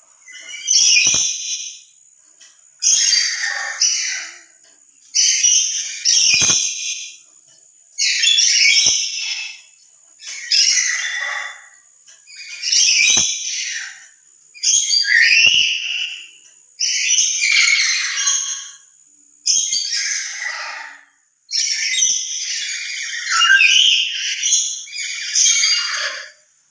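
Black-capped lory giving loud, harsh, shrill calls, about one every two seconds, with a longer run of calls near the end. Lories let out calls like these when excited, often in answer to distant sounds.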